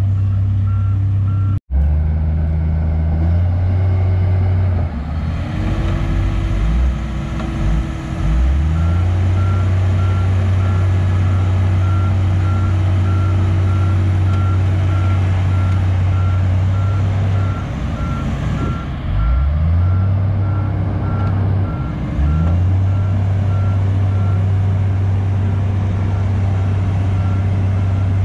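Heavy construction-machine diesel engine running with a deep steady drone, its revs dipping and picking up again around five seconds in and again near twenty seconds. From about nine seconds in, a reversing alarm beeps at an even rate. The sound cuts out for an instant near two seconds in.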